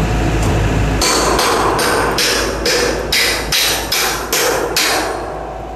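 A hand hammer striking a galvanized steel base beam at a bolted joint: a quick run of about a dozen sharp metal blows, roughly three a second, lasting about four seconds.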